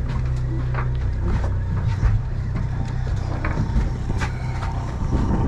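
Charter fishing boat's engine idling, a steady low hum, with scattered clicks and knocks from gear on deck.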